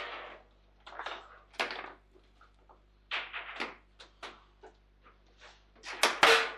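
Table football game in play: the ball and plastic players knocking and clacking against one another and the table walls as the rods are worked, at an uneven pace of a few hits a second. The loudest bang comes near the end, a hard shot that scores a goal.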